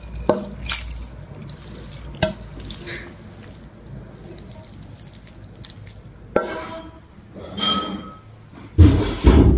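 Kitchen clatter: scattered clicks and clinks of utensils and dishes. There is a ringing clink about three-quarters of the way through and heavier knocks just before the end.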